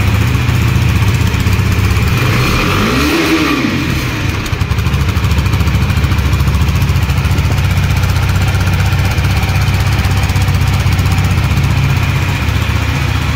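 KTM RC 390's single-cylinder engine idling steadily after a fresh start, heard from its new exhaust. About three seconds in it is blipped once: the revs rise and fall back to idle.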